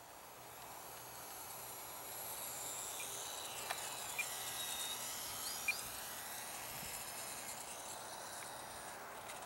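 Faint high-pitched whine of an ultra-micro RC biplane's small electric motor and propeller as it comes in to land, growing a little louder toward the middle with its pitch shifting as it passes. A few light clicks come near the middle.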